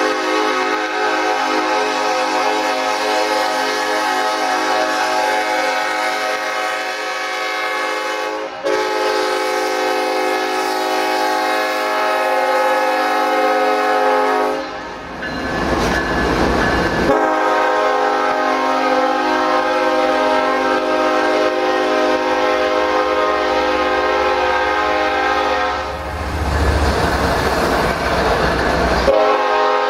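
CSX GE freight locomotive's air horn blowing long, near-continuous blasts for a crossing whose gate arm is broken. It breaks briefly about 8 seconds in and again around 15 and 27 seconds, where the rumble of the passing train comes through.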